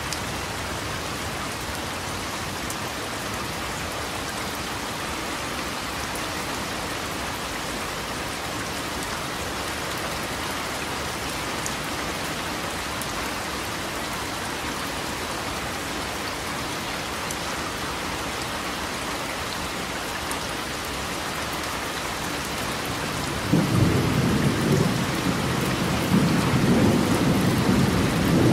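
Steady rain falling. About five seconds before the end, a loud low rumble of thunder starts and carries on.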